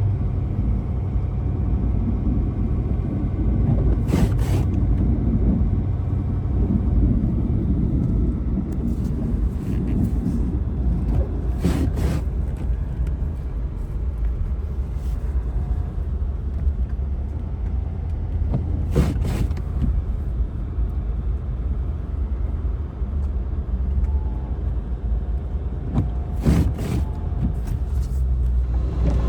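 A vehicle engine running steadily with a low rumble. A few sharp clicks or knocks come through about every seven seconds.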